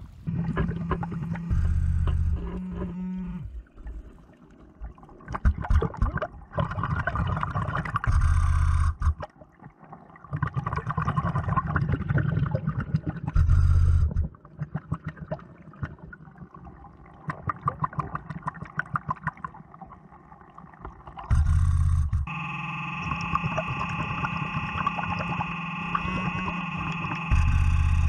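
A diver breathing underwater through a Blu3 Nemo surface-supplied regulator: a low rumble on each breath, with bubbles rushing out between, repeating every few seconds. A steady higher whine joins about two-thirds of the way in.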